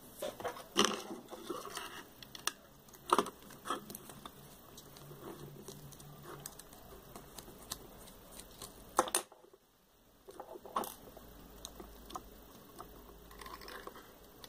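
Scattered clicks, taps and light rustling of small plastic flashlight parts being handled and worked apart with a small screwdriver during disassembly. The sharpest clicks come about a second in, about three seconds in and about nine seconds in, followed by a brief near-silent gap.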